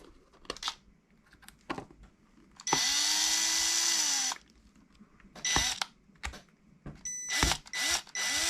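Milwaukee cordless driver running in short bursts, driving screws into a plastic RC crawler wheel's bead ring: two runs of about a second and a half each, one about 3 s in and one near the end, with a brief blip between them. Small clicks of plastic parts being handled between the runs.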